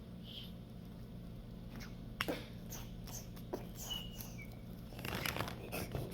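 Marker scratching and rubbing on paper from about five seconds in, after a few sharp clicks, over a steady low hum.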